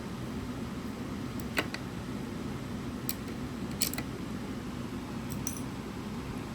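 A few light, sharp clicks and taps of small parts being handled, over a steady low background hum.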